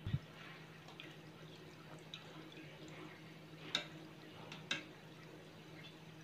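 Sweet kajada dough balls deep-frying in oil on a moderate flame: faint, gentle crackling of the frying bubbles, with a couple of sharper clicks past the middle as a wire skimmer touches the pan, over a low steady hum.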